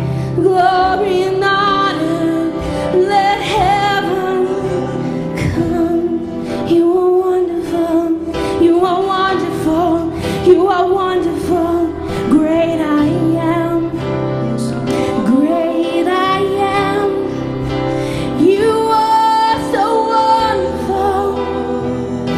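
Live praise and worship music: a woman singing a slow song over a band of keyboard, drums and guitar.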